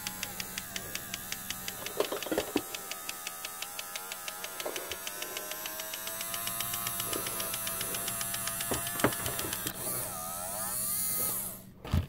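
Salt and pepper shakers shaken over a plastic mixing bowl, the grains rattling in a fast, even rhythm over a steady hum, with a few louder knocks. Near the end a brief squeaking as a stiff lid is worked open.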